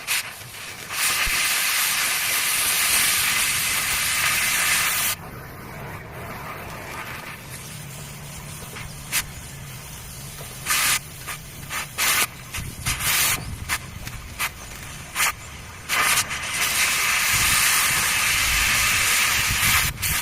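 Steady hissing in two long bursts, about four seconds each near the start and near the end, with many short hisses in between.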